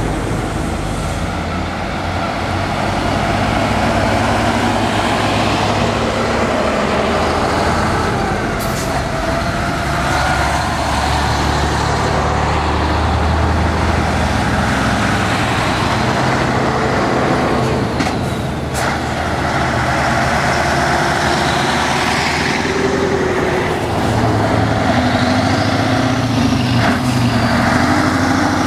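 Vintage diesel trucks driving past one after another, their engines running under load, with the engine pitch rising as a truck accelerates near the end.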